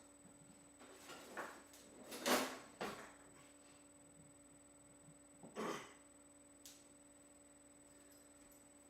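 A few scattered soft knocks and rustles over a faint steady hum, the loudest about two and a half seconds in and another about five and a half seconds in.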